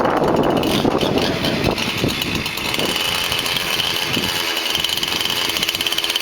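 Chainsaw idling with a steady high buzz. Wind gusts on the microphone in the first couple of seconds.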